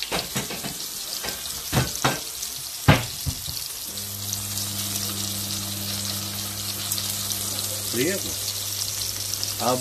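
Breaded pork chops frying in oil in a non-stick pan, a steady sizzle. Several sharp knocks come in the first three seconds, and a steady low hum starts about four seconds in and carries on under the sizzle.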